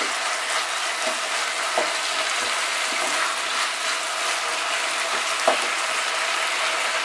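Banana blossom and prawn curry sizzling in a nonstick pan over high flame while a spatula stirs it, with a couple of short knocks of the spatula against the pan. The sizzle is the gravy cooking off until the dish is nearly dry.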